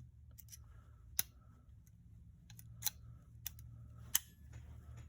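Cylinder of an H&R Model 676 revolver being fitted into the frame and turned: a few sharp metal clicks at irregular spacing as it seats and indexes, rotating properly.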